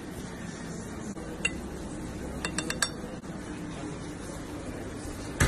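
Light clinks of a spoon against a ceramic plate and bowl as grated cheese is spooned onto a plate of pasta: one tap about a second and a half in, then a quick run of four or five taps, and a louder knock at the very end.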